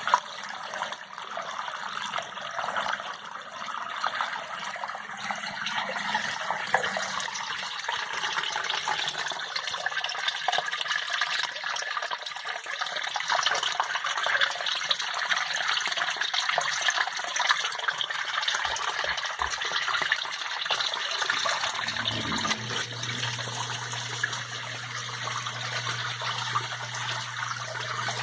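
Water gushing and splashing steadily in a basement sump system. A little over 20 seconds in, a steady electric hum joins it as the sump pump motor switches on.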